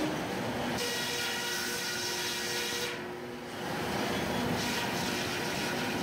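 Sawmill headrig with a large circular main saw and a smaller top saw running and cutting through a log, a steady machine hum and whine under a hissing cut. The high cutting hiss fades briefly about three seconds in, then comes back.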